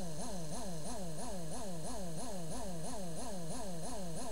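Small can-type DC motor running without interruption on eight batteries in series: a steady buzzing hum whose pitch wavers about four times a second.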